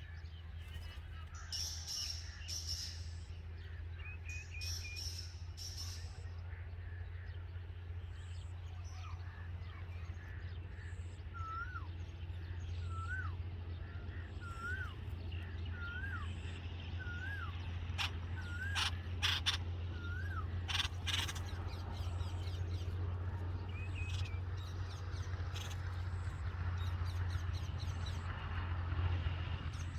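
Birds chirping and calling, including a run of about seven short, repeated, hooked whistled notes, over a steady low hum.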